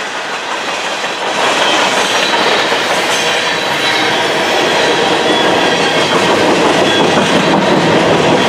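Freight train's boxcars and tank cars rolling past at track speed: steady wheel and rail noise with clickety-clack over the rail joints, getting louder about a second in.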